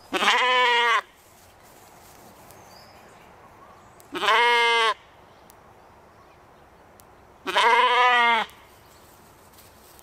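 Katahdin sheep bleating three times, each loud call lasting about a second, a few seconds apart.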